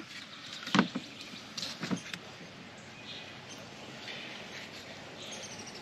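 A removed power steering pump being handled over a plastic drain pan as it is tipped to drain: one sharp knock about a second in, then a few lighter clicks.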